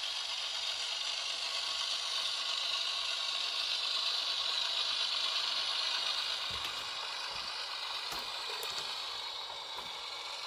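Model freight train rolling past: a steady whir and rattle of metal wheels on the rails and the locomotive's motor and gearing, building to a peak near the middle and easing off as it moves away, with a few light clicks in the last few seconds.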